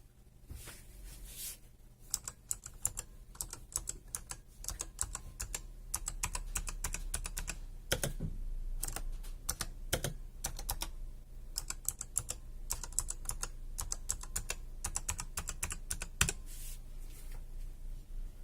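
Typing on a Razer Huntsman Elite keyboard's opto-mechanical key switches: a few scattered key presses at first, then fast continuous clacking. A couple of heavier, deeper strokes come around the middle.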